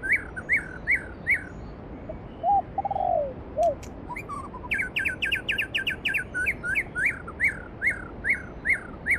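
Songbirds singing over the steady rush of a valley stream. One bird repeats clear down-slurred whistled notes, about two a second, and breaks into a quick run of notes about five seconds in. A lower-pitched call sounds briefly near the third second.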